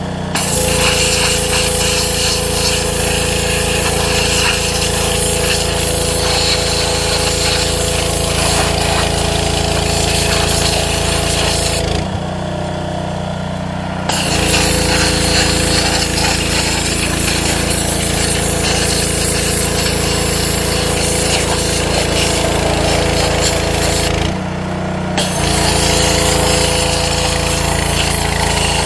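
Gas-engine pressure washer running while its jet blasts rusty dog-proof raccoon traps on concrete. The spray hiss cuts out twice when the trigger is let go, for about two seconds around the middle and for about a second later on, while the engine keeps running.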